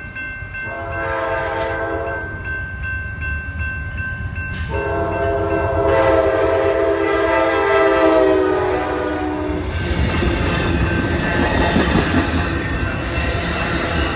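Amtrak P42DC locomotive's horn sounded for a grade crossing: a short blast, then a long one of about five seconds. After the horn, the locomotives and bilevel passenger cars pass close by with a loud rumble and rattle of wheels on the rails.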